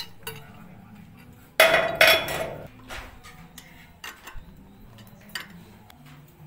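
Metal clanking and clattering: two loud, ringing clanks about a second and a half and two seconds in, followed by a few light clicks and taps.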